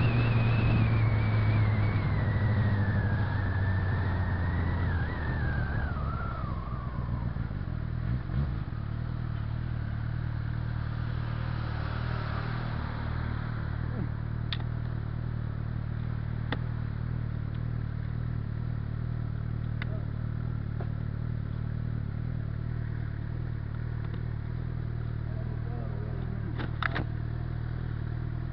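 Suzuki GSX-R 600's inline-four engine winding down as the bike slows to a stop, with a whine falling in pitch over the first several seconds. It then settles to a steady idle, with a few light clicks.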